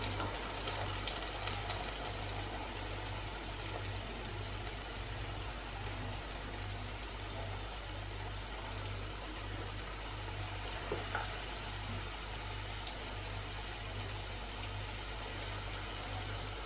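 Balls of rice-flour and sugar dough deep-frying in a pan of hot oil: a steady, soft bubbling sizzle. A low hum pulses evenly underneath.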